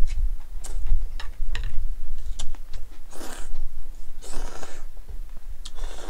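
Cold naengmyeon noodles being slurped up close to the microphone: three long hissing slurps in the second half, between many short sharp eating clicks, over a steady low hum.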